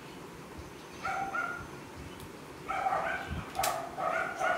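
A small dog yapping in short, high yelps: two a little after a second in, then a quick run of them through the second half. One sharp click comes among them.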